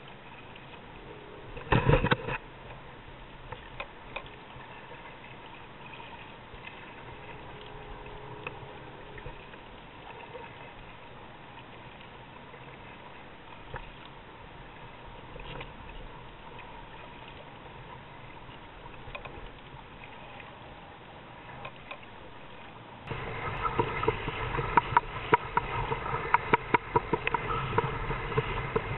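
Low water wash against a kayak with scattered small clicks and one loud knock about two seconds in. About three-quarters of the way through it turns into louder, frequent slaps and splashing as the kayak hull pushes through chop.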